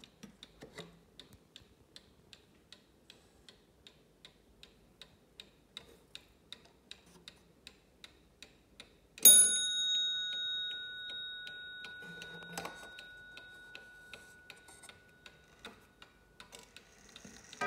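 Waterbury mantel clock movement ticking steadily. About halfway through, its hammer strikes the bell once, the half-hour strike set off as the minute hand is turned past the half, and the clear ring dies away over several seconds.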